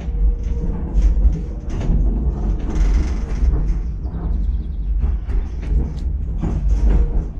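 Chiemsee-Bahn steam tramway carriage running on its meter-gauge track: a steady low rumble with frequent knocks and rattles.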